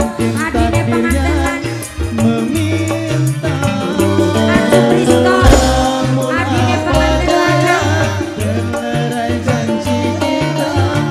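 Live dangdut band playing an instrumental passage: a steady bass-and-drum beat under electric guitar and keyboard melody, with a tambourine jingling along.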